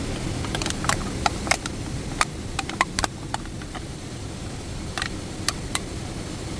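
Sharp, irregular pops and crackles, clustered in the first half and a few more near the end, over a steady low rushing noise.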